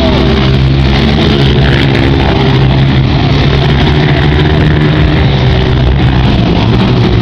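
Honda CRF230 dirt bike's four-stroke single engine running loud and hard at high revs, its pitch wavering slightly with the throttle.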